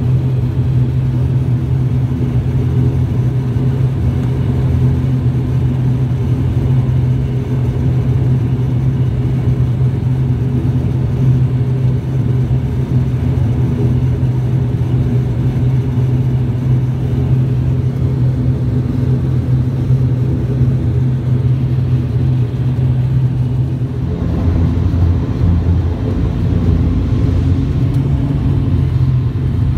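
ATR 42-600's turboprop engines and propellers droning steadily, heard inside the passenger cabin, with a strong low hum. About 24 seconds in the drone deepens, and a tone rises near the end.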